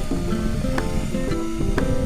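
Background music: a melodic instrumental track with plucked or struck notes changing in a quick steady rhythm over a steady low rumble.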